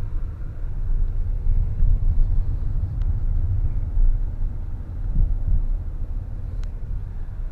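Steady low engine and road rumble of a 4x4 driving along a snow-covered road, with two faint ticks.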